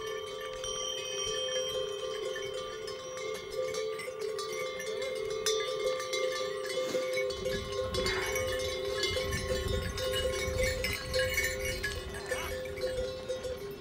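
Bells on a train of laden pack donkeys ringing and jingling as the animals walk, with steady overlapping tones and small clinks. A low rumble joins about halfway.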